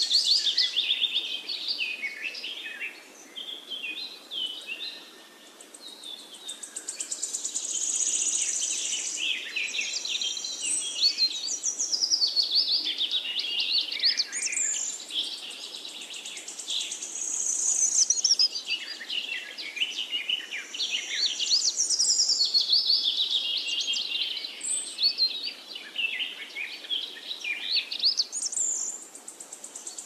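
A chorus of small songbirds singing over one another: quick high chirps and trills that overlap densely, swelling and easing in waves, with a short lull a few seconds in.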